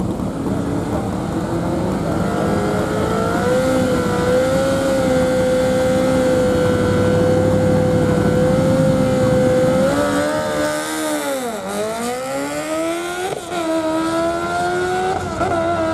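Superbike engine held at a steady high rev on the drag strip start line for several seconds, then launching about ten seconds in: the revs sag and climb again as it pulls away, with two quick upshifts near the end.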